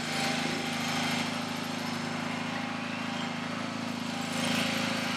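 Small engine of a motorized shed mover running steadily while it carries a shed.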